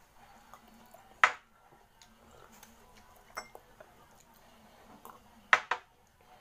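Sharp clinks and knocks of drinking glasses and eating utensils against ceramic bowls and the table: one loud clink about a second in, a lighter one near the middle, and a quick pair near the end, over a faint steady hum.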